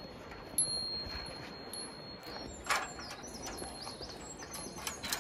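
Footsteps of hikers going down a steep mountain trail, with a few sharp footfalls spaced a couple of seconds apart and high chirping calls in the background.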